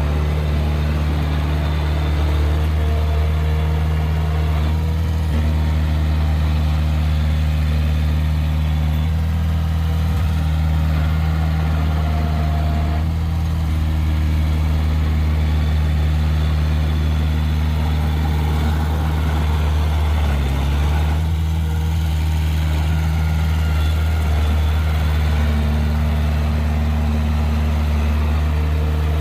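An engine running steadily at idle, a constant low drone with no change in speed.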